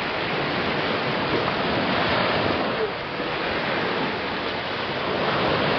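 Surf washing in: a steady rush of breaking waves.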